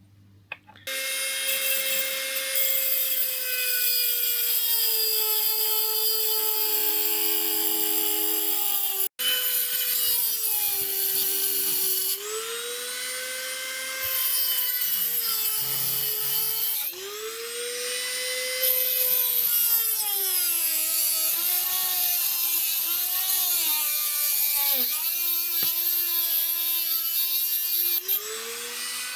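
High-speed rotary tool running and cutting into the reel's metal main plate, its pitch dipping and recovering again and again as the bit bites, with a few abrupt breaks.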